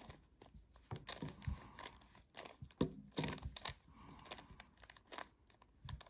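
Plastic speed cube being turned by hand through an algorithm: a run of quick, irregular clicks and clatters as its layers snap round.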